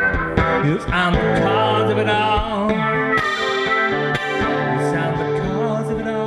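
Live blues music: acoustic or electric guitar with harmonica playing an instrumental passage between sung lines, with held, bending reed notes over the guitar.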